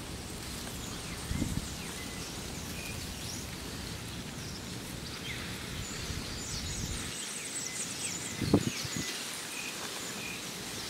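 Outdoor ambience: small birds chirping and trilling on and off over a steady background hiss, with two brief low thumps on the microphone, about a second and a half in and about eight and a half seconds in.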